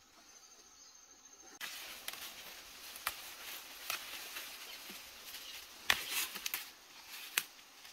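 Leaves and fern fronds rustling, with sharp snaps as fern stems are picked by hand. The rustling starts abruptly about a second and a half in; the loudest snaps come near the end.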